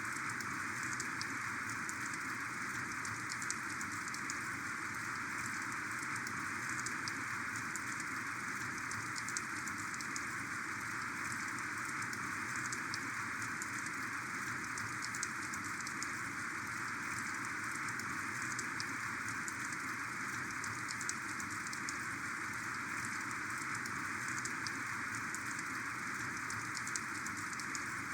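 Heavy rain falling steadily, with countless individual drops ticking sharply against a surface over the continuous hiss of the downpour.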